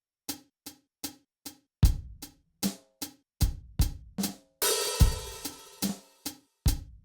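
Drum beat from the SoundKing SD20AM electronic drum module: hi-hat, bass drum and snare voices in an even pattern of about two and a half hits a second, with a cymbal crash about five seconds in. Every hit is clean, with dead silence between, as from the module's direct output.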